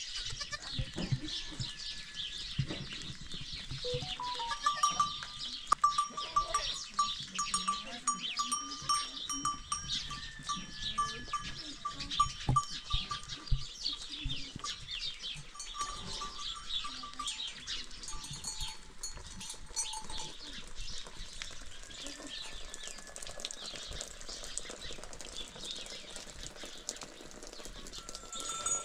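A flock of goats and sheep with neck bells clinking continuously, a dense jangle of small bells that stays steady throughout.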